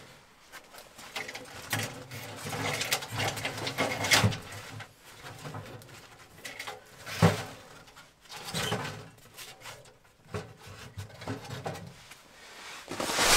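A bundle of dry sticks rustling and snapping as it is broken up and stuffed into the firebox of a small metal wood stove, with irregular clicks and knocks against the stove. The sharpest knock comes about seven seconds in.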